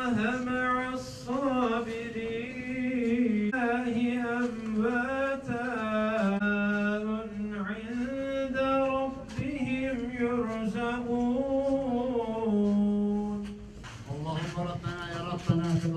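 A man's voice chanting an Islamic religious recitation in a slow melodic style, with long held, ornamented notes. It breaks off briefly near the end and then goes on.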